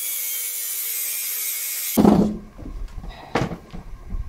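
Angle grinder cutting the two-stroke engine's flywheel: a steady hiss with a steady whine, which cuts off suddenly about two seconds in. A few knocks follow.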